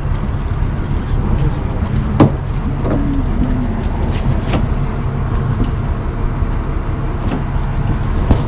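Boat engine running steadily with a low hum, with a sharp knock about two seconds in and a few lighter clicks.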